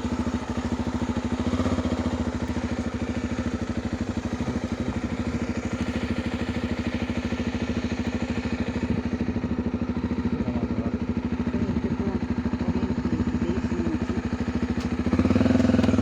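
An engine running steadily, with a fast, even firing pulse.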